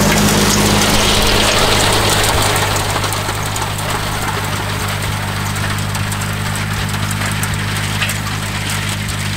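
Farm tractor engine running steadily under load while pulling a hay tedder through a hay field. It gets a little quieter about three seconds in as the tractor moves away.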